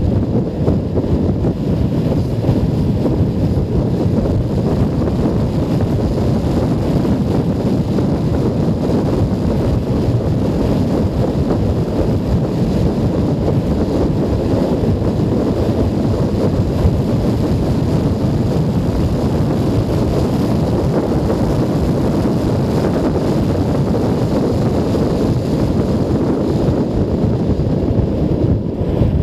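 Steady wind rush buffeting a helmet-camera microphone while riding a Junak M12 Vintage 125 cc motorcycle, a dense low rumble with the bike's running and road noise mixed in.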